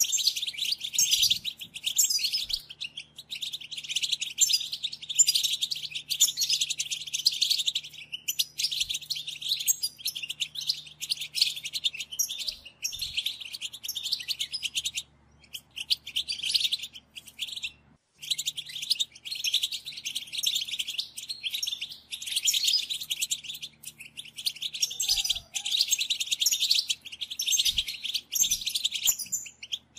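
European goldfinch song: rapid, high-pitched twittering in phrases a few seconds long, broken by brief pauses. It is the kind of goldfinch call used as a lure to trap wild goldfinches.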